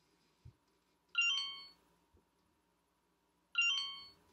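Electronic chime from a Spin Master Chatsters talking doll's speaker, sounding twice about two and a half seconds apart; each is a cluster of bright tones that fades within about half a second.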